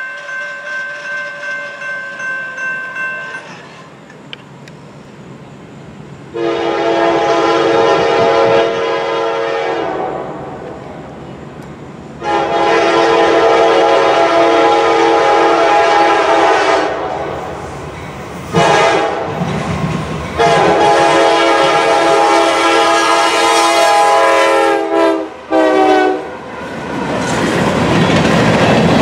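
A grade-crossing bell rings and stops about three and a half seconds in. Then a Norfolk Southern GE D9-40CW locomotive's multi-chime air horn sounds the grade-crossing signal, long, long, short, long, ending with a brief final blast. Near the end the locomotive and grain hopper cars roll past with rumble and wheel clatter.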